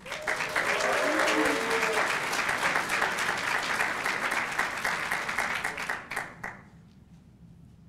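Audience applauding, with a voice calling out near the start; the clapping dies away about six and a half seconds in.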